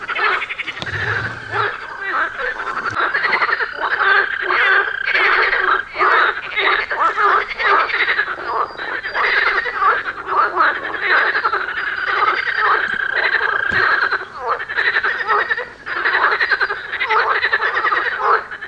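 A dense chorus of frogs calling at the riverside, many calls overlapping without a break.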